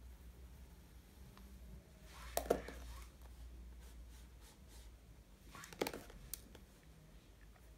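Faint scratching of pencil and eraser-pen work on sketchbook paper, with two light knocks, about two and a half and six seconds in, as the pens are put down and picked up.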